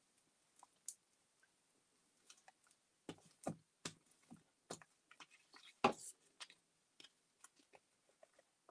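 Glue stick and paper being handled on a table: a scatter of soft taps and clicks as the stick is used, capped and put down, the loudest a knock about six seconds in.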